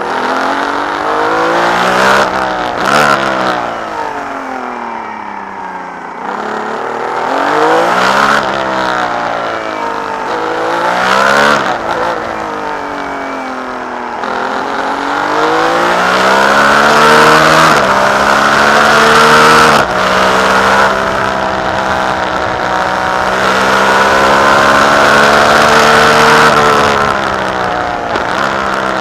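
Ferrari 312B's flat-twelve racing engine heard on board, revving up and falling back over and over through quick gear changes and corners in the first half. Then a long pull at high revs, with one sharp drop for a gear change about two-thirds in, before it eases off near the end.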